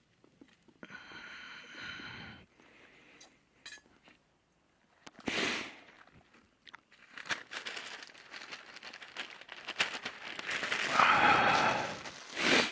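Newspaper being crumpled by hand: a dense crinkling, crackling rustle that builds over the second half and is loudest near the end.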